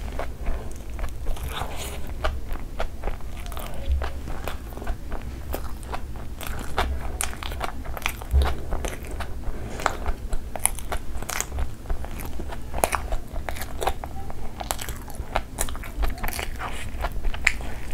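Close-up chewing and biting of a chicken burger: a steady run of wet mouth clicks and soft crunches of bread and fried patty.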